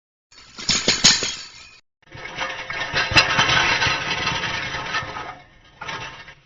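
Metal objects struck and rattled: first a short cluster of metallic knocks, then a longer, busy metallic clatter of many rapid small impacts lasting about three seconds, with a brief bit more near the end.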